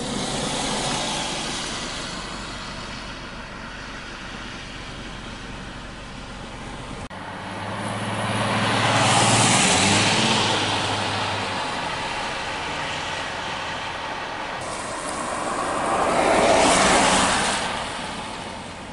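Cars passing on a wet road, tyre noise on the wet asphalt swelling up and fading away three times: near the start, about halfway through, and near the end. The pass about halfway through carries a low engine hum under the tyre noise.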